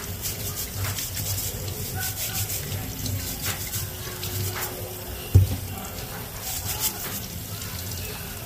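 Kitchen tap running water into the sink while potatoes are rinsed and rubbed clean, with scattered small knocks and one sharp thump about five seconds in.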